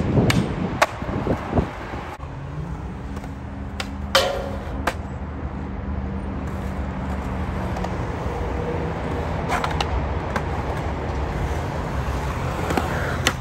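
Skateboard on concrete: a steady rolling rumble from the wheels, broken by sharp wooden clacks of tail pops and landings. The loudest clack comes about four seconds in, with a few more in the first two seconds and another pair about ten seconds in.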